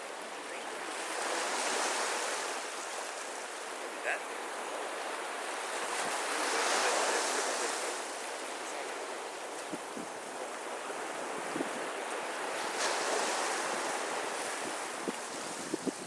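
Sea waves washing onto a beach, the surf rising and falling in three slow swells about five seconds apart.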